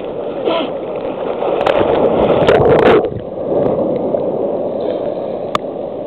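Sea surf sloshing and splashing right around a waterproof camera held at the water's surface. It swells louder as a wave washes past and drops off suddenly about three seconds in, with a sharp tap near the end.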